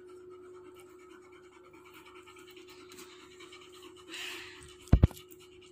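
A yellow Labrador dog panting softly over a faint steady hum. About five seconds in, two sharp low thumps come in quick succession.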